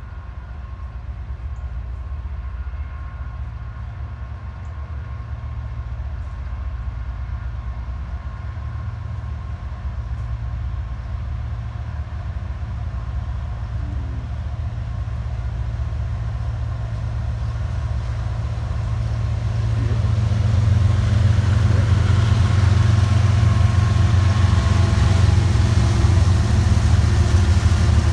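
Diesel locomotives at the head of a loaded BNSF coke train approaching, their engines' low drone growing steadily louder. Wheel and rail noise rises as the lead units come alongside near the end.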